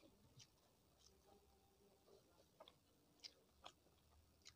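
Near silence with about half a dozen faint, short clicks from someone eating by hand: quiet chewing and fingers working food on a plate.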